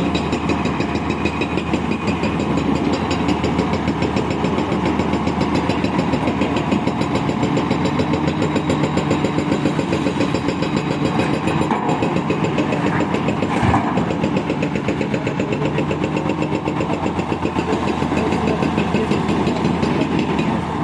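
Tata Hitachi Zaxis 650 excavator's diesel engine running steadily with a fast, even pulse. A single sharp knock comes about 14 seconds in.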